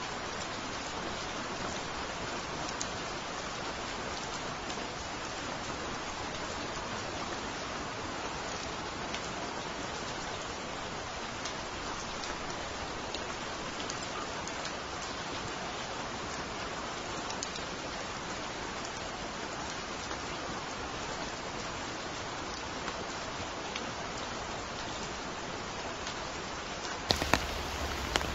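Steady rain falling, an even hiss with many scattered raindrop ticks. Near the end the sound turns fuller, with a few louder taps.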